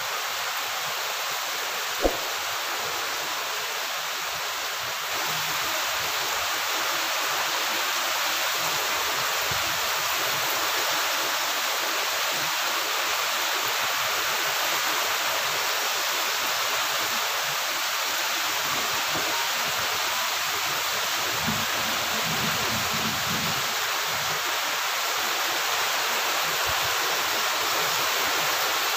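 Heavy tropical rain pouring steadily on trees and plants, a dense even hiss that grows a little louder after about five seconds. A single sharp click comes about two seconds in, and a low rumble runs for a couple of seconds about three-quarters of the way through.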